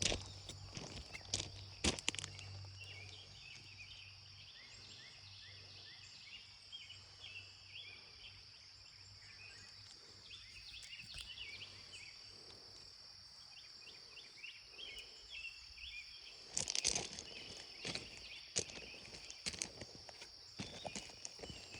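Outdoor rural ambience: a steady high insect drone with scattered small chirps, and crunching footsteps near the start and again in the last few seconds.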